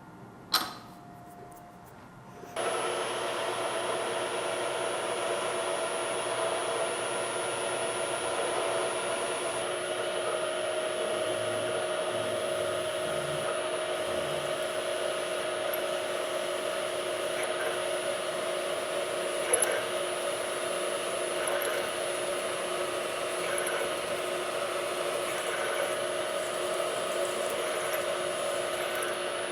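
A click, then about two and a half seconds in a shop machine's electric motor comes on abruptly and runs steadily, with a steady high whine over its hum.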